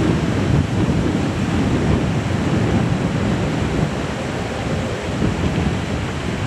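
Steady low roar of a British Airways Airbus A380's four Rolls-Royce Trent 970 turbofans at taxi power, mixed with wind buffeting the microphone.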